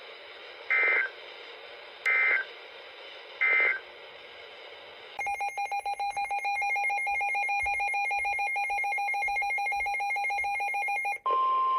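Three short bursts of EAS/SAME digital data tones, about 1.4 s apart: the end-of-message code after a weather radio warning. After a pause comes a loud electronic signal of several steady pitches, choppy at first, for about six seconds, and near the end a single steady weather-radio alert tone begins.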